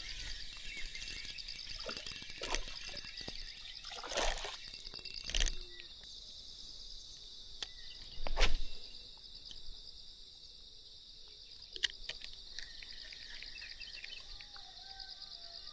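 Insects chirring steadily in the riverside grass, a fast pulsing trill that runs throughout, with a higher, finer trill in the first half. A few short noisy bursts cut through, the loudest about eight seconds in.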